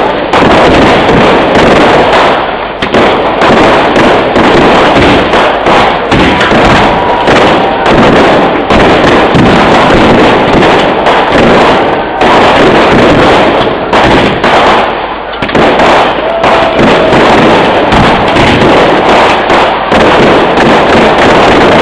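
Kerala vedikkettu fireworks display: a dense, unbroken barrage of aerial shells and firecrackers exploding and crackling, so loud that the recording sits at full scale almost throughout, with only brief dips between volleys.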